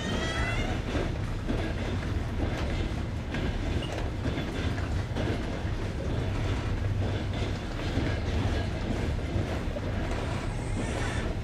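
Passenger train carriage running over jointed rails, heard from the train: a steady rumble with the clickety-clack of the wheels striking the rail joints. A brief high whine sounds in the first second.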